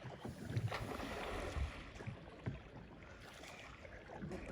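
Water splashing and lapping around a small boat moving along a mangrove creek, with a few soft knocks less than a second apart.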